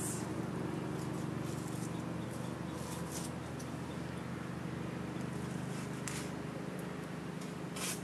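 Small wood fire burning in a BioCore rocket stove: a steady rushing noise over a low hum, with a few short hissing crackles.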